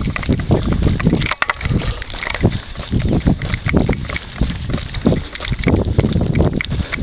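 Running footsteps on wet asphalt, a steady rhythm of about three footfalls a second, with wind on the microphone.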